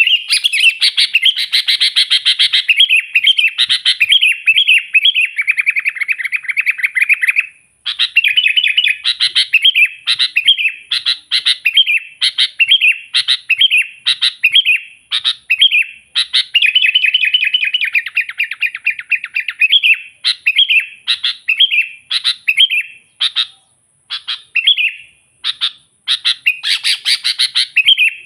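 Sooty-headed bulbul (kutilang) singing hard: fast runs of bubbly chirped notes, breaking off briefly about seven seconds in and a few times near the end.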